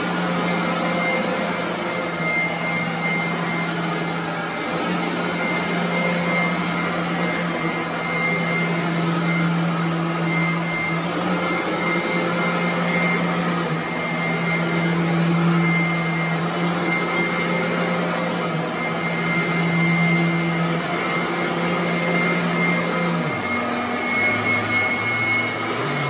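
Royal commercial upright vacuum cleaner running on carpet: a steady motor hum with a thin high whine. About three seconds before the end the low hum drops in pitch.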